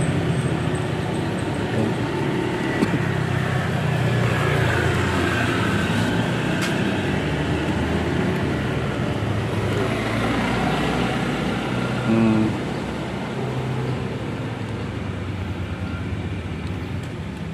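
Road traffic: motor vehicle engines running and passing with a steady, shifting rumble. A short low tone stands out about twelve seconds in.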